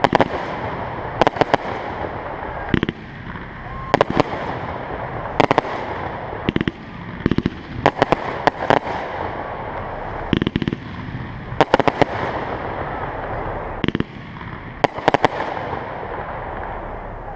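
Aerial fireworks going off in a show: clusters of sharp bangs and cracks every second or two, over a steady rushing background noise.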